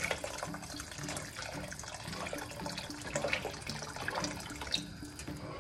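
Hot boiling water poured from a kettle in a steady stream into a pot of bulgur soup, splashing into the broth.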